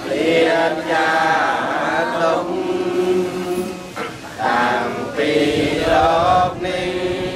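A group of voices chanting Buddhist prayers together in a steady recitation, in phrases with short breaks between them.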